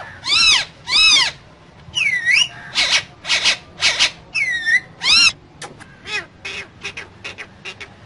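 Alexandrine parakeet calling: about eight loud calls over the first five seconds, some rising and falling in pitch, some dipping then rising. These give way to a run of softer short chirps and clicks.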